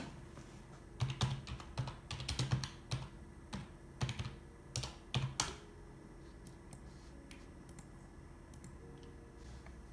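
Typing on a computer keyboard: a run of quick, irregular key clicks for about four seconds, then only a few faint clicks.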